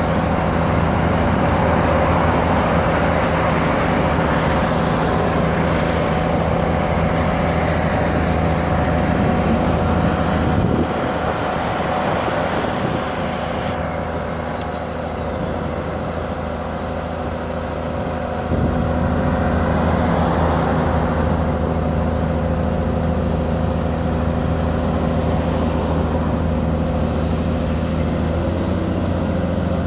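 Excavator-mounted vibratory hammer running, with the excavator's diesel engine, vibrating a steel H beam to pull it out of the ground. The loud, steady hum and rattle eases off about 11 seconds in and comes back at full strength about 18 seconds in.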